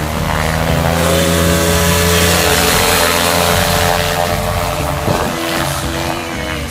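Paramotor's backpack engine and caged propeller revving up in the first second, then running loud at high throttle through a foot-launched takeoff run.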